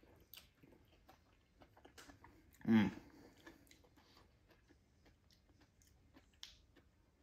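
A person chewing crunchy cooked curly dock stalks, with faint crunching clicks throughout and a short hummed vocal sound about three seconds in.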